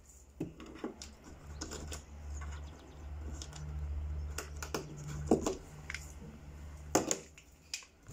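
Scattered clicks and knocks of a toy pistol and its magazine being handled on a tabletop, with a low hum in the middle stretch.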